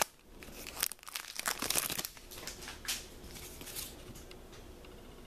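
Foil wrapper of a Pokémon booster pack crinkling and tearing as it is opened: a run of sharp crackles for the first three seconds or so, then softer rustling.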